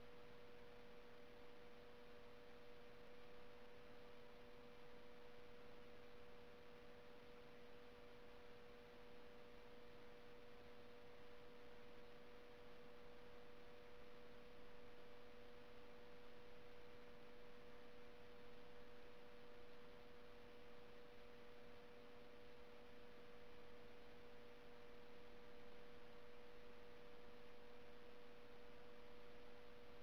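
Faint steady electronic hum: a constant tone near 500 Hz with weaker tones above and below it, over a soft even hiss. This is electrical noise on a security-camera recording's audio track.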